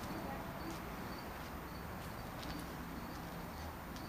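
Outdoor background noise with faint, short, high chirps repeating about twice a second.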